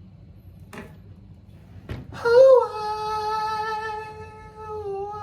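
A voice holding one long sung note, starting about two seconds in and loudest at the start, after a couple of faint clicks.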